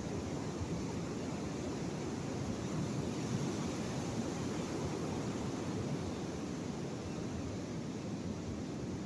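Sea surf: a steady wash of waves, swelling slightly a few seconds in.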